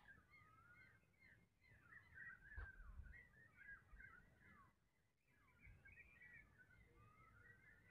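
Faint chorus of many small birds chirping and twittering, the calls overlapping continuously, over a low rumble.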